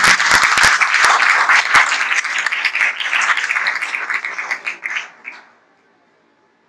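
Audience applauding, a dense patter of many hands clapping that tails off and stops about five and a half seconds in.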